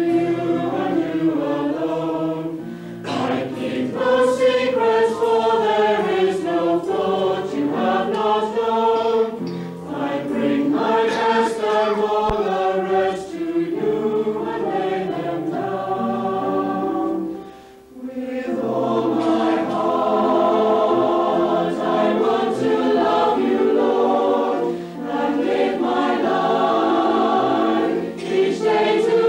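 Mixed choir of men's and women's voices singing a sacred song in parts, with a brief break between phrases about eighteen seconds in.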